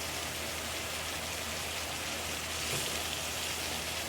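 Steady hiss with a low hum underneath, and one light knock nearly three seconds in.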